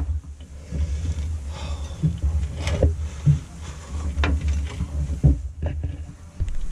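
Scattered light taps and clinks of fried fish pieces being handled on a plate at a glass table, over a low steady rumble.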